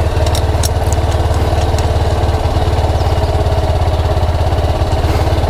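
Motorcycle engine idling steadily, a fast even run of firing pulses.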